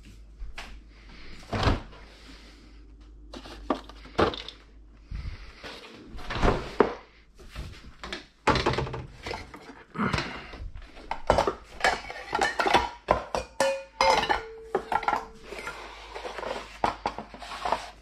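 Stainless steel mixing bowls clattering and clinking as they are lifted out of a cupboard and set down on a wooden chopping board, among knocks and thunks of kitchen handling and a cupboard door. One bowl rings briefly with a steady tone a little past the middle.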